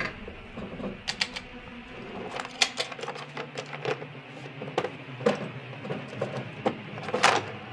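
A run of irregular sharp clicks and taps, a few a second, with a louder knock near the end.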